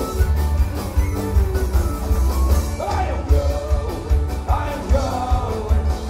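A live band playing, with an acoustic guitar and a steady drum beat about twice a second. A sung vocal line comes in about three seconds in.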